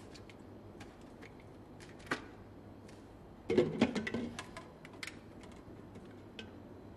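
Light clicks and taps of a plastic bottle and a handheld plastic appliance being handled, with a short run of louder knocks and clatter about three and a half seconds in.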